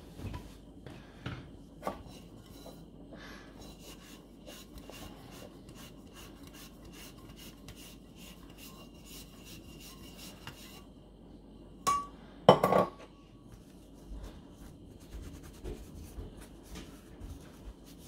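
Parts of a portable coffee maker, its stainless steel mug and plastic lid, being handled and wiped with a cloth: many small clicks and light rubbing. About twelve seconds in come two sharp clinks, the second louder and ringing briefly.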